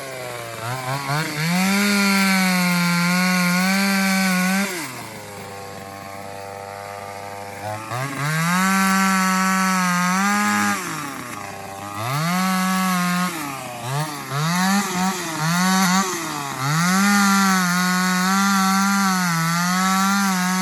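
Small 25cc two-stroke chainsaw engine revving up to high speed and dropping back to idle several times, with a run of quick throttle blips about two-thirds of the way through and a long stretch held at high revs near the end.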